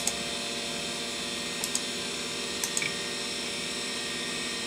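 Steady hum of running computer equipment, with a few light mouse clicks: one at the start, one a little before two seconds, and two close together near the three-second mark.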